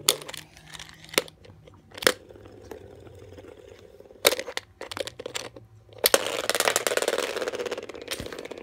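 LEGO spinning top spinning in a plastic dish, giving several sharp knocks as it strikes the dish. From about six seconds in, a fast, continuous rattling starts.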